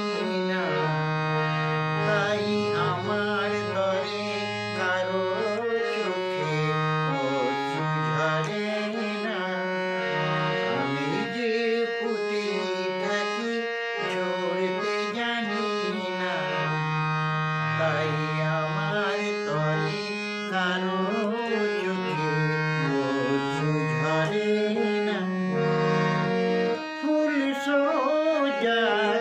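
Harmonium played in sustained reed chords and melody, with a man's voice singing a wavering tune over it.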